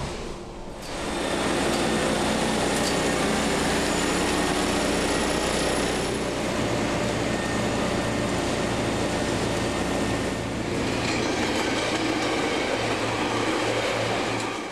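Plasser & Theurer Dynamic Stopfexpress 09-4X track tamping machine at work: a loud, steady mechanical din of its engine and rail running gear. It swells up about a second in and shifts in tone twice.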